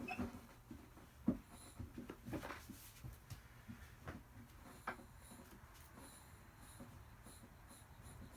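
Scattered clicks and knocks of a vintage manual bead breaker being worked against a tire whose bead won't unseat. The sharpest knock comes about a second in, a lighter one near five seconds, and the handling noise thins out after the first few seconds.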